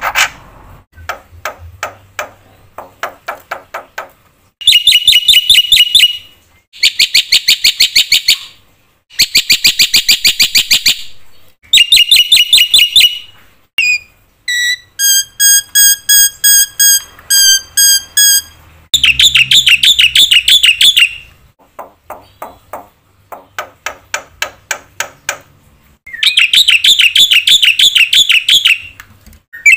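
Black-winged myna singing: rapid clicking rattles alternate with loud, buzzy trilled phrases of a second or two each, with a run of clear whistled notes around the middle.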